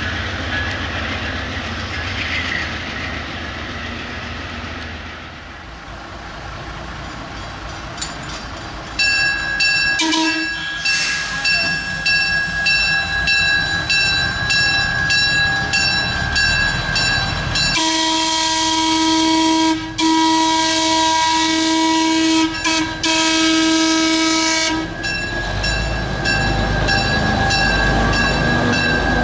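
Small diesel switcher locomotive approaching and passing with a train of open passenger cars. Its bell rings steadily from about a third of the way in. From about the middle, its horn sounds for several seconds with two short breaks. Under both is the rumble of the engine and wheels, which grows near the end as the train goes by.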